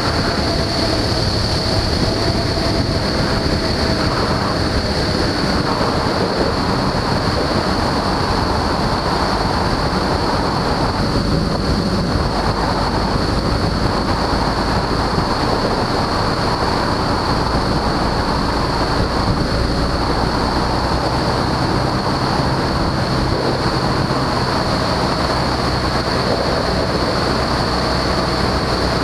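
Steady drone of a Husky A-1C light aircraft's engine and propeller in flight, blended with a loud, even rush of wind noise.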